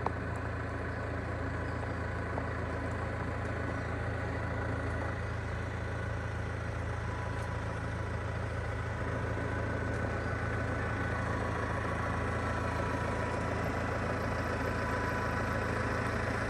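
Tractor engine running steadily while it pulls a water-wheel transplanter through the field: an even, low drone with a faint steady whine above it.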